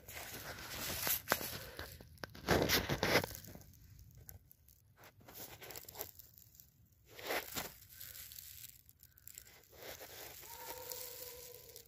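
Dry pine straw and dead leaves rustling and crunching in irregular bursts as they are disturbed underfoot and close to the phone. The loudest burst comes about two and a half seconds in.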